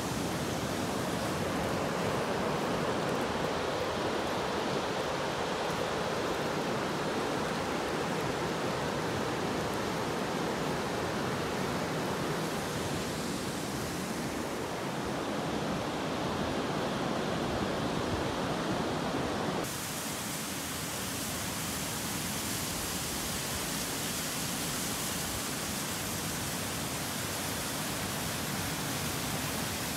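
Steady rush of water, a waterfall and surf on a cobble beach, with no distinct events. About two-thirds of the way in it changes abruptly, turning thinner and hissier.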